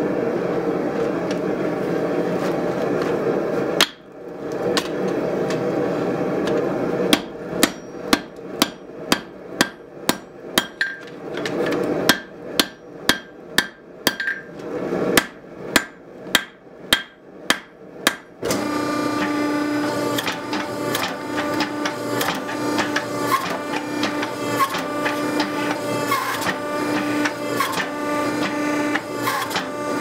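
Hand hammer striking a hot Damascus billet on a steel anvil, about twenty ringing blows at roughly two a second with a short pause partway through. Before and after the blows there is a steady machine drone from the hydraulic forging press's pump running.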